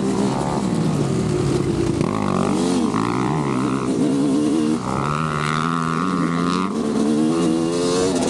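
Motocross bike engine revving as it is ridden, its pitch rising and falling again and again.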